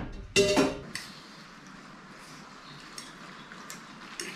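Metal cooking pot and utensils clanking: two loud knocks in the first second, the second ringing briefly, then a few light clinks.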